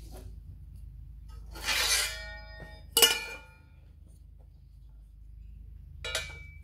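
Thin galvanised sheet steel being handled against the steel of a press brake: a short ringing scrape, then a sharp ringing clank, and near the end a smaller clank as a steel square meets the bent piece. A steady low hum runs underneath.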